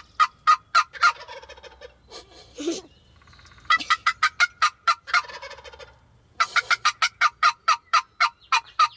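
Wild turkeys calling: three runs of quick, evenly spaced yelps at about four a second. A tom answers the first two runs with a rattling gobble.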